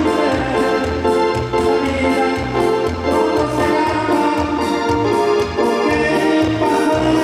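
Live dance band music played through a PA: held organ-like keyboard chords over a steady bass line.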